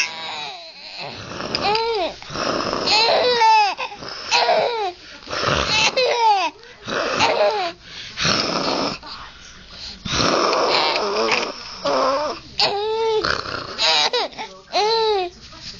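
Baby laughing: a string of breathy, gasping laughs alternating with high-pitched squeals that rise and fall, coming about once every second or so.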